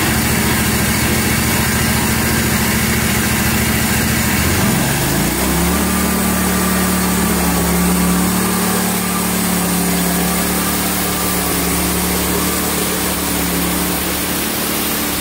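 Small gasoline engine of a Hud-son Homesteader HFE30 portable band sawmill running. Its speed changes about five seconds in, then it runs steadily.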